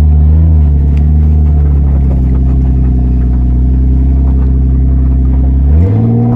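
Lexus IS straight-six engine running loud at a steady pitch, then revving up sharply near the end.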